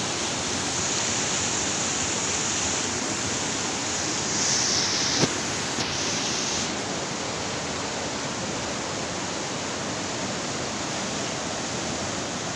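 Mountain river rushing over boulders through white-water rapids: a steady, even hiss of fast water, with a single sharp click about five seconds in.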